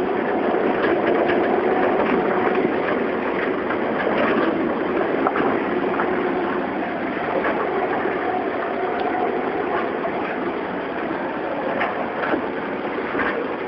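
A vehicle running at low speed: a steady engine hum with road noise and scattered small clicks and rattles.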